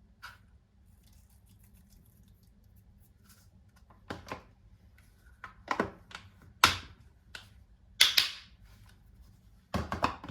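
Several sharp knocks and clatters from objects being handled and set down, about five over six seconds. The loudest comes about eight seconds in, with a brief scraping tail.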